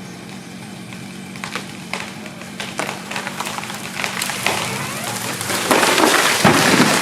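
Felled tree cracking and splintering as it goes over, a quickening run of sharp snaps that builds into a loud crash of branches and wood about six seconds in. A low steady engine hum runs underneath.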